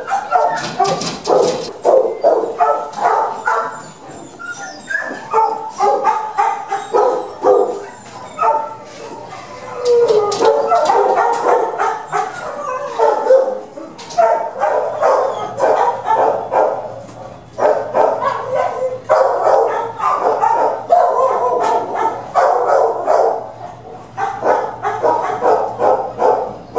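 Dogs in shelter kennels barking and yipping, many calls overlapping almost without pause, loud throughout.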